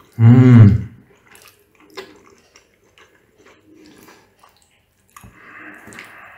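Eating sounds: a brief, loud hum-like vocal sound from the eater right at the start, then soft chewing and light clicks of a fork and spoon on a plate, with a wet mouth sound near the end.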